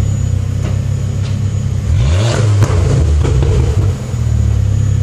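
Ford Focus ST engine idling, given one quick rev about two seconds in: the pitch rises sharply and falls back, with a crack near the peak, before settling back to a steady idle.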